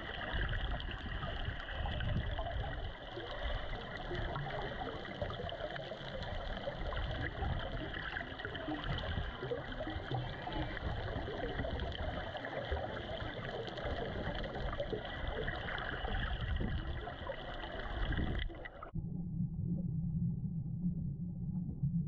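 Underwater water noise picked up by a submerged camera: a steady rushing, bubbling hiss of water moving around the housing. About nineteen seconds in it cuts abruptly to a duller, muffled low rumble.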